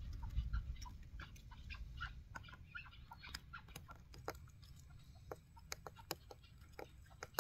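Chukar partridges giving short clucking calls, scattered several to the second, over a low rumble that fades in the first second.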